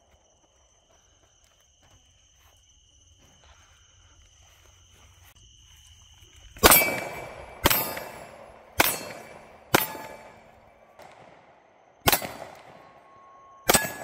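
Six handgun shots. The first comes about halfway through, the next three follow about a second apart, and the last two come after a pause. Each shot is a sharp crack followed by a fading echo.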